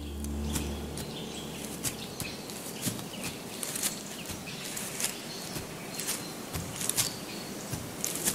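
Red deer walking through forest undergrowth: irregular light rustles and twig crackles, a few a second, over a faint steady hiss.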